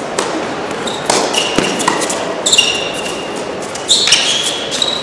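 Tennis ball struck by rackets and bouncing on an indoor hard court, a few sharp knocks about a second apart, followed by short high squeaks of players' shoes on the court surface.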